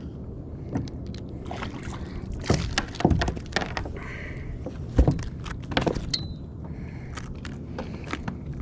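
Irregular knocks, clicks and clatter of gear and handling against a fishing kayak, with one loud knock about five seconds in and a brief high squeak just after, over a steady low rumble.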